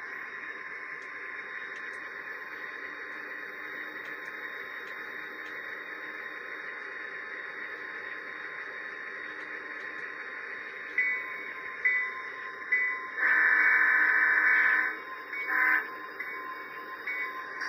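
Tsunami DCC sound decoder in an HO scale EMD SD45 model locomotive playing its diesel engine sound through the model's small speaker, steady as the model runs. About eleven seconds in the bell starts ringing at roughly one stroke a second, then the horn sounds one long blast and a short one, the horn being the loudest part.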